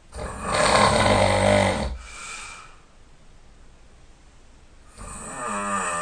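A person snoring loudly in sleep. One long, loud snore lasts about two seconds and is followed by a softer breath. After a pause of about two seconds, the next snore begins near the end.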